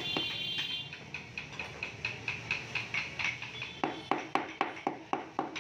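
Small hammer tapping inlay strips down into their grooves in a wooden panel: quick light taps, about five a second, that turn into heavier strikes for the last couple of seconds.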